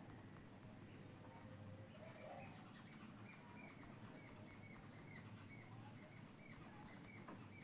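Near silence with a faint low hum; from about two seconds in, faint, quick high-pitched chirps repeat several times a second.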